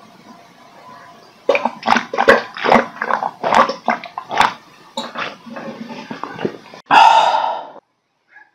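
Someone chugging bottled Evian water straight from a large plastic bottle: loud gulps and swallows, about two to three a second, with water gurgling in the bottle, ending about seven seconds in with a loud breathy exhale.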